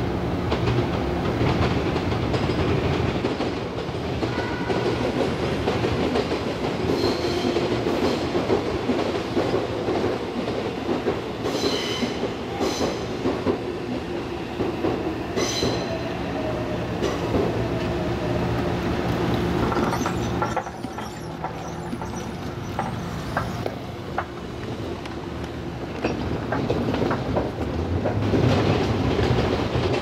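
Electric trains running past the level crossing, a steady running hum with a few short high wheel squeals about halfway through. The sound drops about two-thirds of the way in, then builds again as another train comes through near the end.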